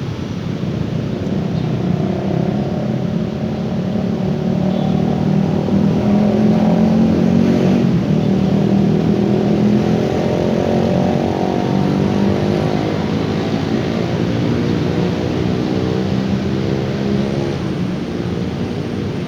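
A passing motor vehicle's engine hum that swells to its loudest about seven seconds in, then eases off as its pitch falls slowly.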